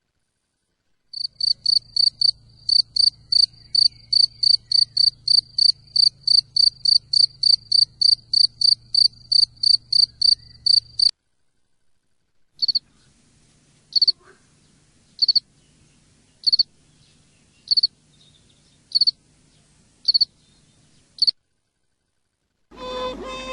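Field cricket chirping: a fast run of short, high chirps, about three a second, that stops suddenly. After a short gap come slower single chirps, about one a second. Music begins near the end.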